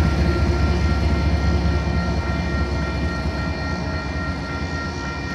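Union Pacific diesel-electric locomotives (a four-unit GE and EMD lashup) on a slow coal train rumbling past. The deep engine sound slowly fades as they pull away, with steady high-pitched tones above it.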